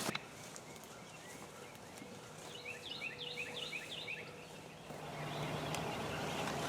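A songbird sings a quick run of short, falling chirps for under two seconds, starting about two and a half seconds in, over quiet early-morning outdoor ambience with a faint low steady hum. The background noise grows a little louder near the end.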